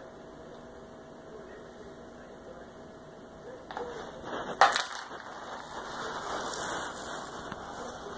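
A cat jumping down from a carpeted cat condo onto a wood floor: a few knocks and one sharp thump about four and a half seconds in, then a couple of seconds of rustling and scuffling.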